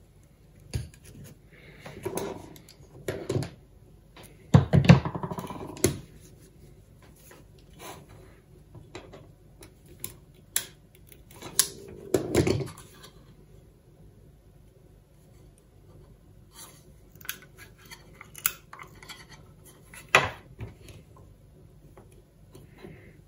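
Workbench handling sounds: hand tools such as pliers and a soldering iron picked up and set down on a wooden bench, and a plastic project box moved about, giving scattered clicks and knocks. The loudest knocks come about five seconds in, with others around twelve and twenty seconds.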